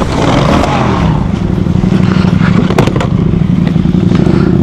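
Adventure motorcycle's engine running and settling into a steady idle about a second and a half in as the bike stops on a dirt road. There is clattering, and a couple of sharp knocks near the middle.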